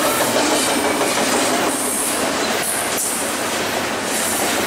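Double-stack container cars of a BNSF freight train rolling past close by: a steady, loud noise of steel wheels on rail, with brief faint wheel squeals near the start.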